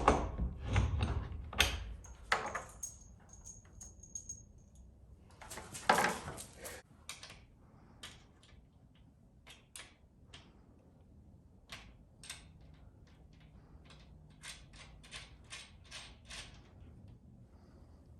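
Bolts and hardware on a sliding garage door being taken out and refitted by hand with a wrench, heard as scattered metallic clicks and knocks. There is a louder, longer burst of noise about six seconds in, and a quick run of about eight clicks near the end.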